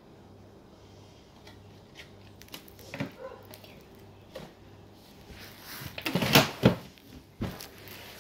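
Indoor knocks and clatter of household handling, with a loud cluster of bangs about six seconds in and another single knock a second later.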